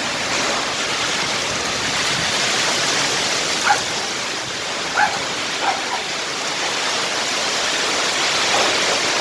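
Strong wind blowing hard and steadily, a continuous rushing noise. A dog barks several short times around the middle and once more near the end.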